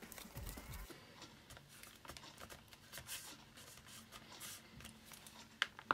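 Faint scratching, rustling and light clicks of hands and a small Phillips screwdriver working on the screws that hold a laptop's internal battery, with two sharp clicks near the end.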